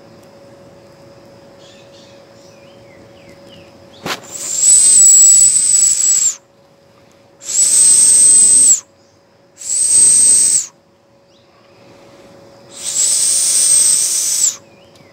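A loud hissing whistle sounds four times, each lasting one to two seconds. It holds a steady high pitch and starts and stops abruptly.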